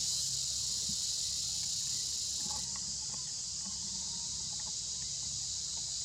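Steady chorus of forest insects, an even, shrill high-pitched hiss, with a few faint short chirps about halfway through.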